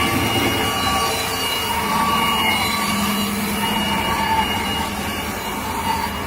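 CNC band saw running, its blade cutting wood with a steady rushing noise and a faint high whine that shifts in pitch.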